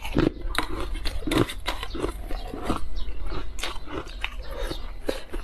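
Crushed ice being chewed close to the microphone: a rapid, irregular run of crunches and cracks.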